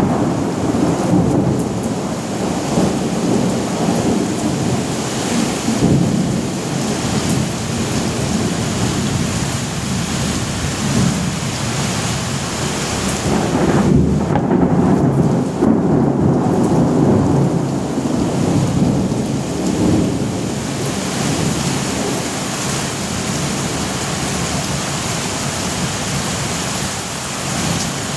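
Thunderstorm: steady heavy rain with low rolling thunder rumbling underneath, the rumble swelling to its loudest about halfway through and then fading back.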